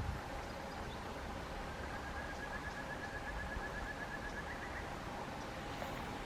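A bird's rapid trill: a string of short, evenly repeated notes at about seven a second, lasting about three seconds and ending with a couple of slightly higher notes. It sounds over a steady outdoor hiss.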